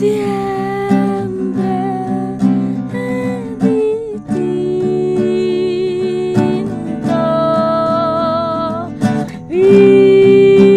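A woman singing long held notes, some with vibrato, over a strummed nylon-string classical guitar in a candombe song. The loudest and longest note begins near the end.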